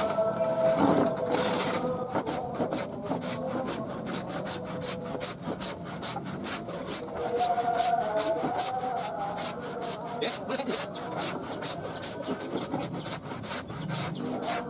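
Wooden hand plane shaving a wooden board in rapid, short, repeated strokes, each one a quick rasping scrape of the blade across the grain.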